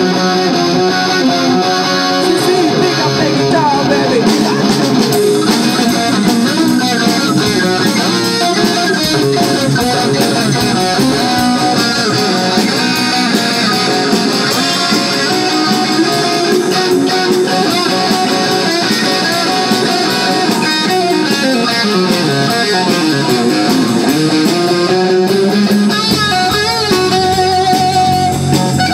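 Live rock band playing an instrumental stretch: electric guitar to the fore, with bass and drums underneath.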